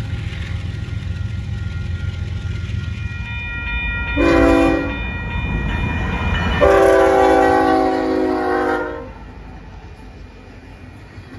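Union Pacific GE C45AH diesel locomotive approaching with a low steady rumble, then sounding its air horn: a short blast about four seconds in and a longer one of about two seconds. The sound drops away sharply soon after the long blast.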